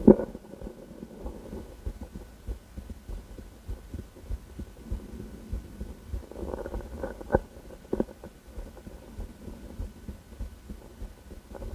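A woman's heartbeat heard through a stethoscope, a run of low, dull thumps over a low hum. A few louder rustles and knocks come near the start and again about six to eight seconds in.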